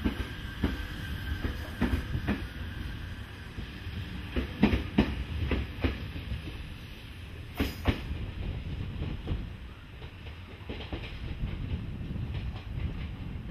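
KiHa 40 diesel railcar running slowly out of a station, heard from on board: a steady low rumble, with the wheels giving a string of irregular sharp clacks over rail joints and points, loudest about five seconds and eight seconds in.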